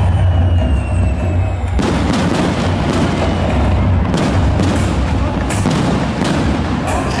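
Fireworks display: aerial shells bursting in a continuous barrage of low booms. From about two seconds in it grows denser, with many sharp pops and crackles.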